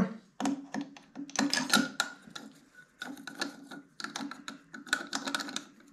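A steel 5C collet being slid into a Hardinge 5C index head and turned to find its key slot: a run of irregular metal-on-metal clicks, taps and scrapes.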